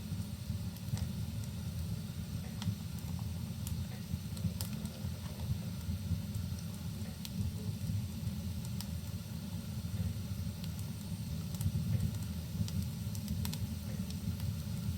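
Wood fire burning in a fireplace, crackling with scattered sharp pops every second or two over a steady low rumble, with rain mixed in.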